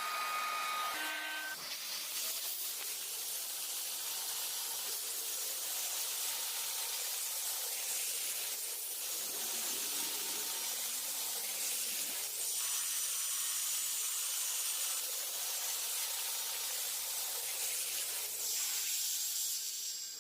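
Steady hissing noise.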